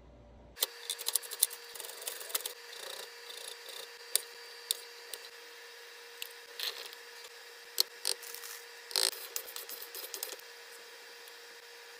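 Kitchen food-prep sounds: a utensil scraping and cutting, with irregular sharp taps and knocks, starting about half a second in over a steady faint hum.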